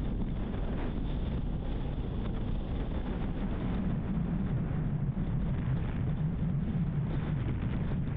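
Car driving along a road: a steady low rumble of tyre and wind noise, a little stronger in the second half.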